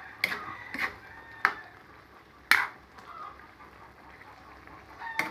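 A cooking spoon knocking and scraping against a metal pan while stirring a thick coconut-milk mixture. There are four sharp knocks in the first two and a half seconds, then a quieter stretch, then one more knock near the end.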